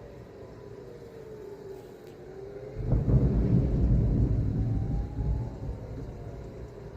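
Air-raid warning siren wailing, its pitch slowly falling and then rising again. About three seconds in, an explosion sets off a sudden loud boom, and its low rumble rolls on for about two and a half seconds.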